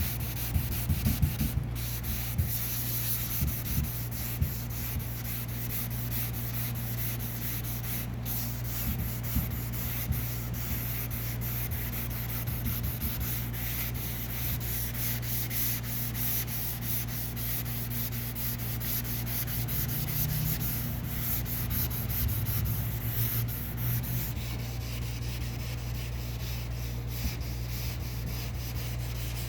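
Sandpaper rubbing over a car's painted panel in continuous strokes, working down a deep key scratch in the paint. A steady low hum runs underneath.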